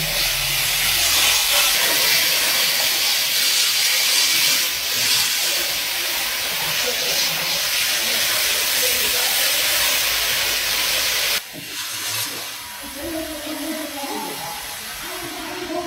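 A loud, steady hiss that cuts off abruptly about eleven seconds in, followed by a quieter voice.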